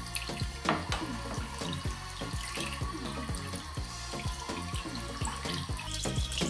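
Tap water running into a sink and splashing over a smartphone as it is rinsed by hand, with background music that has a steady beat.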